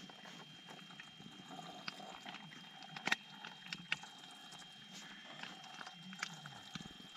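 A thin stream of liquid poured from a plastic pouch into a metal kettle on a gas camp stove, trickling steadily, with scattered sharp clicks and taps, the loudest about three and four seconds in.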